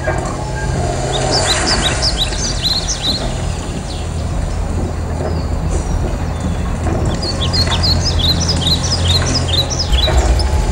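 Birds chirping in two spells of quick high chirps over a steady low engine rumble from a tank, the rumble growing louder near the end.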